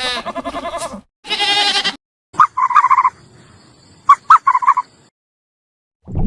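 Two wavering, pitched bleats from a goat or sheep. These are followed by two bursts of short, clipped calls from domestic fowl, with a few sharp clicks among them.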